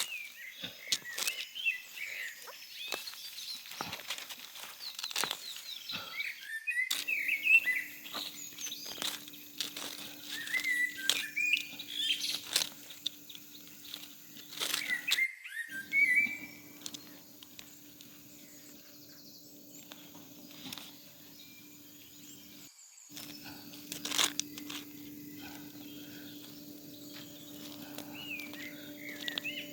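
Small birds chirping in short bursts, busiest in the first half, with scattered sharp clicks and a faint steady hum underneath.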